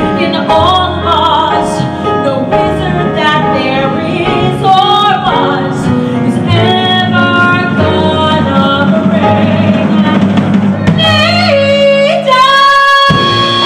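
A woman singing solo into a microphone with instrumental accompaniment, her line rising and falling, then settling into one long held note near the end.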